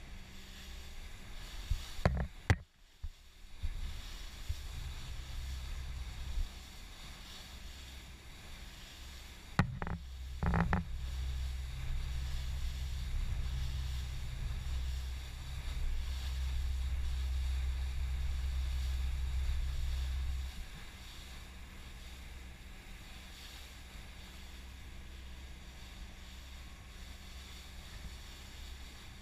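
Motorboat underway on choppy water: a steady low rumble with a few sharp knocks about two seconds in and again about ten seconds in. The rumble grows louder, then drops away suddenly about two-thirds of the way through.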